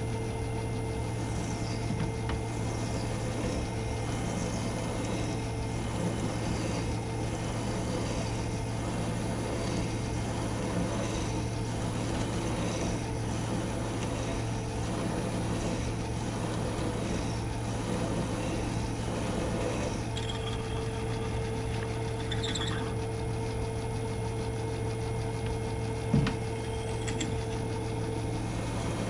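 Metal lathe running steadily while an 8.5 mm drill bit is fed into an M10 bolt, drilling the tapping hole. Under a constant hum, a higher whine comes and goes, and there is one sharp knock near the end.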